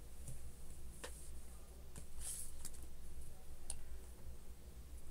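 Fleece fabric being handled and laid out at a sewing machine: soft rustling and a few scattered light clicks over a steady low hum.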